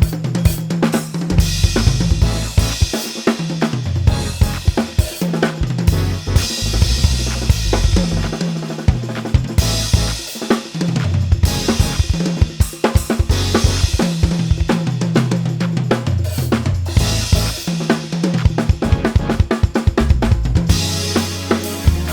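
Drum kit played fast and busy, with rapid snare and bass-drum strokes, hi-hats, and washes of crash and ride on Soultone handmade cymbals. Sustained low bass notes of a backing track run beneath.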